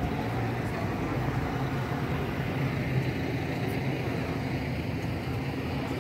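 Engine of a parked double-decker sightseeing bus idling with a steady low hum.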